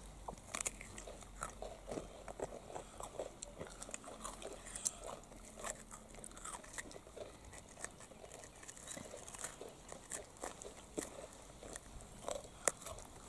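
Several people biting into and chewing crisp deep-fried wheat-flour biscuits: faint, irregular crunches and clicks.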